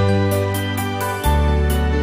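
Instrumental gospel backing track: held chords over a low bass line, with a light, regular high tick. The bass note changes just past halfway.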